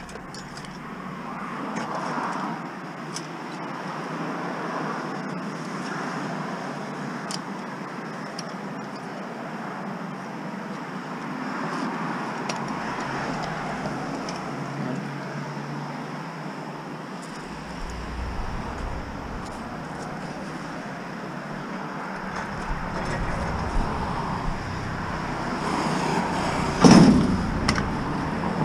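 Steady street background noise with handling sounds, then near the end a few loud metallic bangs as the sheet-metal cabinet of a curbside appliance is handled.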